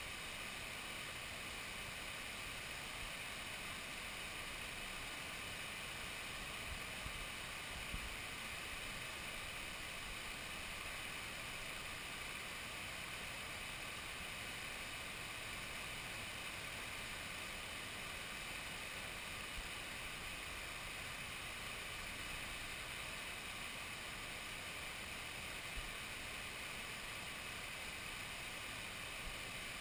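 Water rushing steadily over a river weir and down its stepped fish pass, a constant even roar, with a few faint low bumps about eight seconds in and again near the end.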